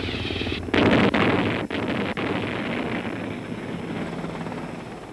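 Helicopter in flight: rapid rotor beating over engine noise, with a louder rush about a second in, then easing off and fading toward the end.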